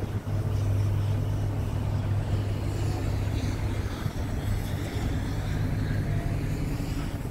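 Scania R tractor unit's diesel engine idling steadily, a constant low hum.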